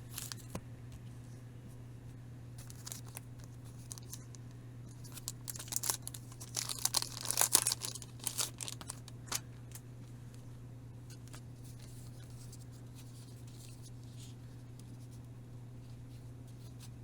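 Packaging being torn open and crinkled in a few scattered tugs, then a dense stretch of tearing and crackling in the middle that is loudest just past the midpoint, over a steady low hum.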